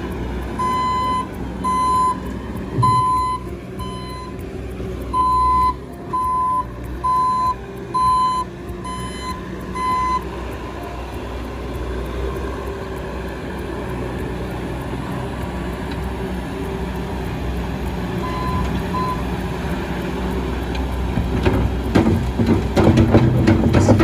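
Bobcat S650 skid steer with its diesel engine running and its reversing alarm beeping about a dozen times over the first ten seconds. Near the end the machine gets louder, with clattering, as the loaded bucket is raised and topsoil is tipped into a dump trailer.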